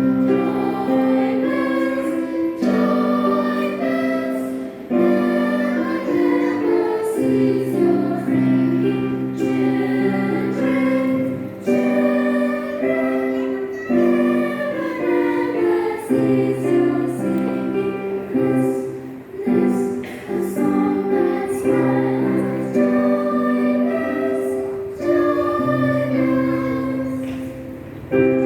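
Junior choir singing a hymn, the voices holding and moving between sustained notes in a steady phrase-by-phrase rhythm.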